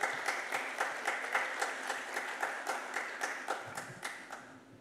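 Audience applauding, with sharp individual claps standing out over the crowd's clapping, which fades away near the end.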